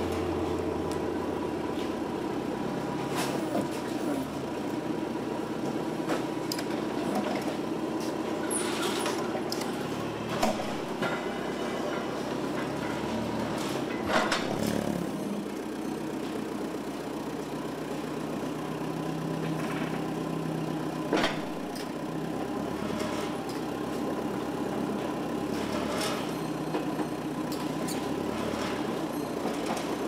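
Caterpillar propane forklift engine running steadily while it lifts and loads pallets of wooden crates, with a few sharp knocks along the way.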